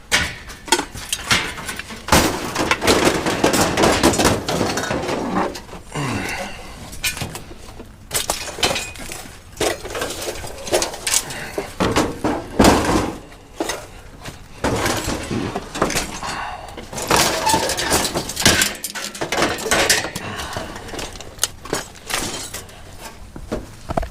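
Scrap junk being handled and tossed about: repeated irregular clanks, clatters and crashes of metal and breakable pieces hitting one another.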